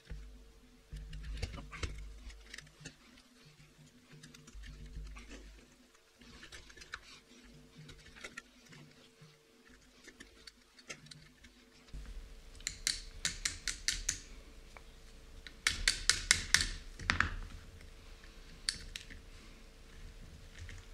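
Small aluminium parts of an RC car chassis clicking and tapping as they are handled and fitted by hand. There are scattered clicks, then two runs of quick clicks in the second half, each about a second long.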